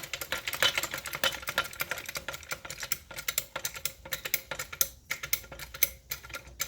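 Ratchet car stand being worked: its metal pawl clicking rapidly and unevenly over the ratchet teeth of the centre column.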